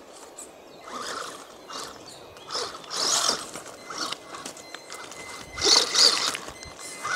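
WLtoys 12428-B 1/12-scale RC crawler's electric motor and gears whining in short bursts of throttle, with the tyres and plastic chassis clattering over stones. Loudest about three seconds in and again around six seconds in, as the truck comes close.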